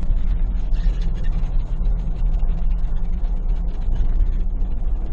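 2021 Ford Bronco driving on a rough dirt road, heard from inside the cabin: a steady low rumble of engine and tyres with many small rattles and clicks.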